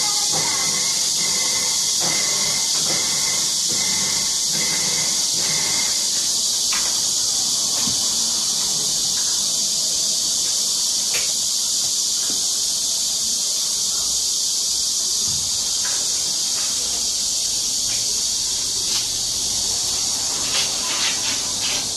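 A loud, steady high-pitched hiss, with a few light clicks and scratches near the end as a kitten paws at the window.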